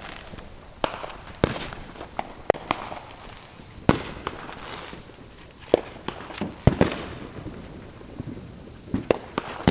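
Consumer fireworks going off: a string of sharp bangs at irregular gaps, roughly one every second, the loudest about four seconds in and again near seven seconds.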